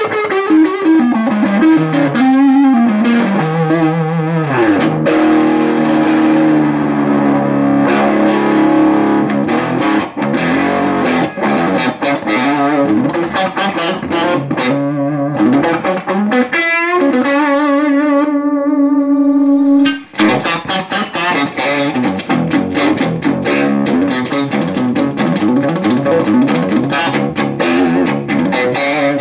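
Telecaster-style electric guitar played through a 65 Amps Stone Pony 7591 amp: a solo of bent notes and held notes with wide vibrato. About twenty seconds in, one long held note cuts off sharply, and fast picked runs follow.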